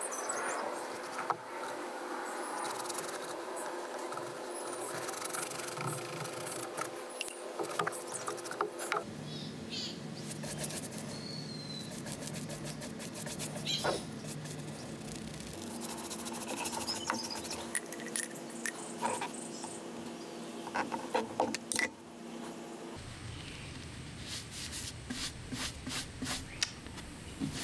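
Wood lathe running, with the scraping and clicking of work on the spinning pine piece. The steady hum changes abruptly three times.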